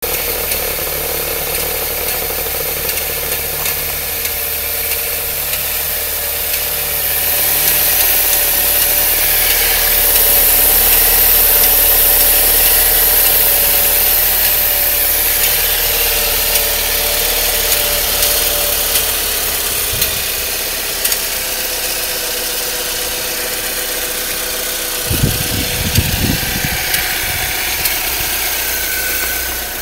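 Saab 9-3 engine idling with a rough, tractor-like running sound and a ticking that the owner finds concerning. It gets somewhat louder for several seconds in the middle.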